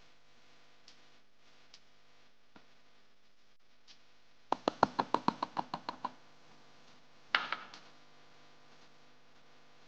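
A small glass bowl knocked repeatedly against the rim of a plastic container to tap out the last of the flour: about a dozen quick knocks in a second and a half, then one louder knock with a couple of small rattles.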